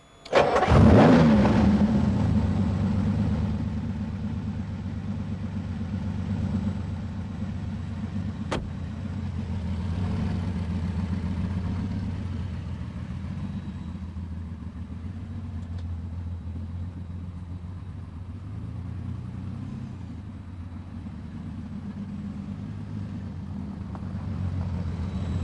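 Lamborghini Countach 5000 Quattrovalvole's V12 engine coming in with a sudden loud burst about a second in, then running steadily at low revs, a little louder near the end.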